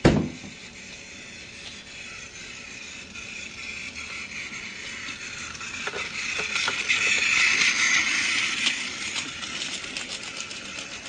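A sharp knock, then a rattling clatter of many small clicks over a hiss that builds up, is loudest a few seconds before the end and fades away.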